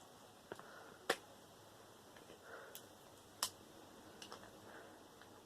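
A few faint, sharp clicks and ticks, about five spread out, the loudest about a second in, from tools and parts being handled while taking apart a copper transformer.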